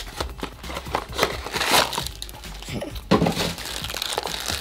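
Crinkling and crumpling of the sealed blind-box bag as it is handled and squeezed to push the air out, an irregular run of crackles and rustles.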